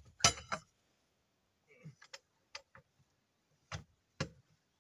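Sharp clicks and knocks of hand tools and metal parts being handled while working on a forwarder wheel, at uneven spacing, the loudest just after the start.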